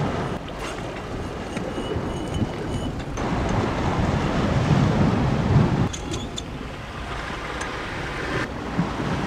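Wind buffeting the microphone over the wash of sea surf on a rocky shore, a steady rumbling noise.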